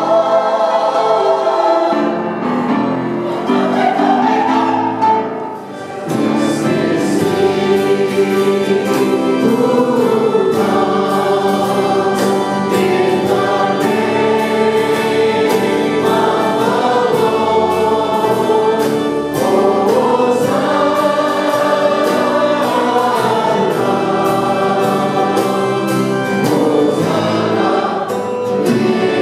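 Church choir singing a hymn together with a small band of singers and acoustic guitar. A steady beat comes in about six seconds in, after a brief dip in level.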